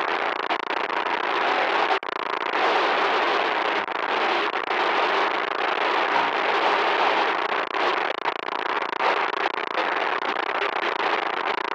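Loud, harsh crackling static noise, continuous with a brief dropout about two seconds in.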